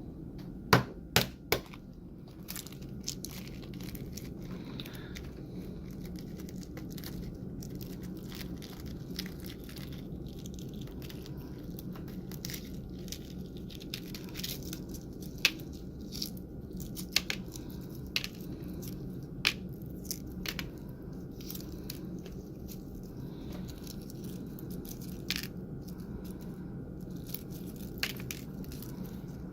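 Hard-boiled egg being cracked and peeled by hand: three sharp taps about a second in, then scattered small cracks and crinkles of shell coming away, over a steady low hum.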